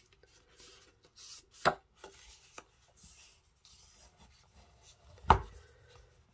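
Card stock being folded and pressed flat by hand onto a card base on a cutting mat: faint paper rustling with two sharp taps against the table, one just under two seconds in and a louder one about five seconds in.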